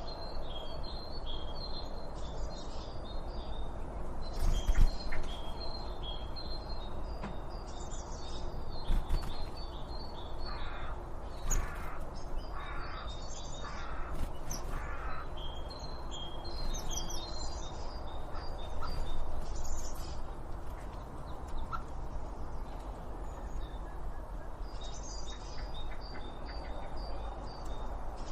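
Birds calling outdoors: series of rapid, high chirps repeat throughout. Near the middle comes a run of about five harsh, caw-like calls just under a second apart, over a steady background hiss.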